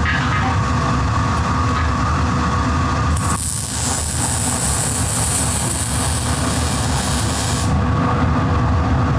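An electric welding arc hisses for about four and a half seconds, starting about three seconds in, as the steel tube loop of a Simson S51 café-racer frame is welded. A steady, loud, low machine rumble runs underneath throughout.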